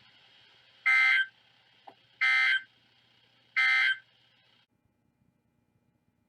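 Three short, identical bursts of buzzy Emergency Alert System (SAME) digital data tones, about a second and a half apart: the end-of-message code closing a weather radio warning. The faint steady broadcast hum under them cuts off a little after the third burst.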